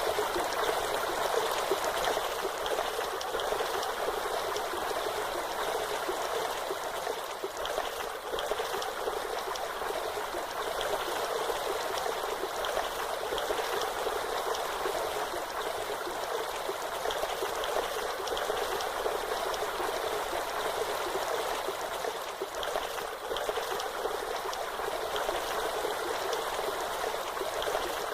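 Waterfall: falling water rushing and splashing steadily, an even hiss that is light in the bass.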